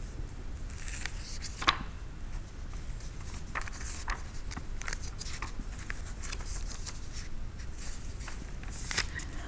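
Pages of a book being turned and papers handled on a desk: soft scattered rustles and light ticks, with one sharper click a little under two seconds in.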